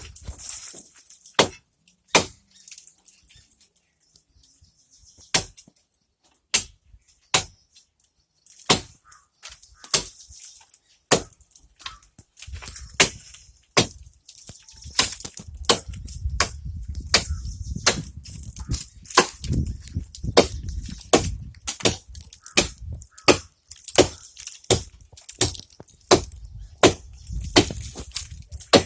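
Axe blows chopping into a tree: sharp single strikes, a few seconds apart at first, then coming faster, about one to two a second, over a low rumble in the second half.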